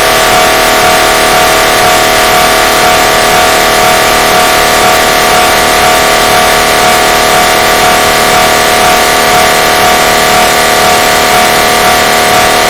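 MRI scanner noise from the gradient coils: a steady, very loud drone of several held tones over a hiss, unchanging throughout.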